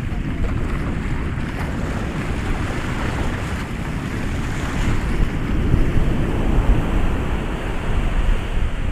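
Ocean surf washing ashore in a continuous rushing noise, swelling a little louder from about halfway through.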